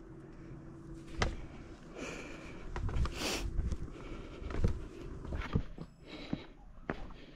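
Footsteps and scuffs of a hiker walking down a rocky trail over loose stones, with several sharp knocks and a brief rush of noise about three seconds in.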